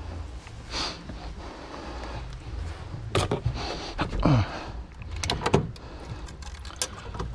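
Handling of a fuel pump and sending unit assembly at the fuel tank opening: scattered plastic clicks and knocks, with one short falling creak a little after four seconds, over a low steady hum.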